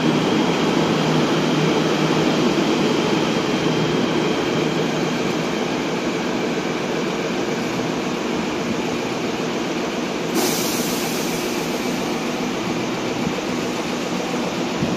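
CRRC Zhuzhou KTM Class 93 electric multiple-unit train pulling away. Its running noise and faint motor tones slowly fade as it leaves. A sudden hiss starts about ten seconds in and lasts a second or so.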